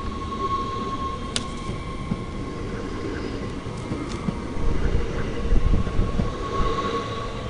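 NS Sprinter Lighttrain (SLT) passenger train rolling past close by: a steady rumble of wheels on rail under a steady high whine, with a single sharp click about a second and a half in. The rumble grows louder in the second half.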